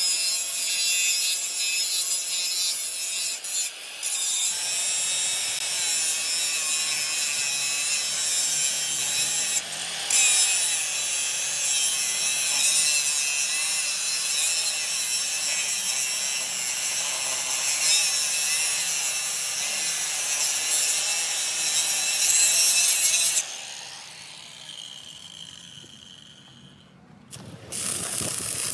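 Power grinder working on steel, a steady harsh grinding noise with a faint whine that cuts off abruptly about 23 seconds in.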